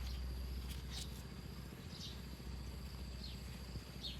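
Faint outdoor ambience: a steady high-pitched insect hum with short, high, falling chirps about once a second over a low hum.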